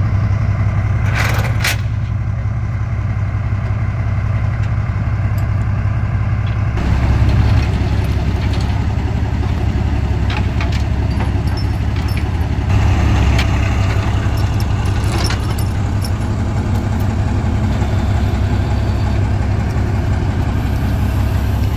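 BAT-M engineering vehicle's diesel engine running steadily under the load of its crane, picking up briefly about seven seconds in and again around thirteen seconds, with a few short clanks.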